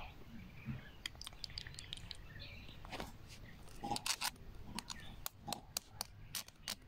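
Wire cage clicking and rattling as a baby vervet monkey grips and pulls at the bars: irregular sharp clicks, thickest and loudest about four seconds in.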